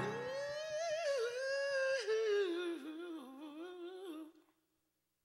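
A man's voice singing a long wordless run without accompaniment, wavering and gliding downward in pitch, then cutting off abruptly to silence about four seconds in.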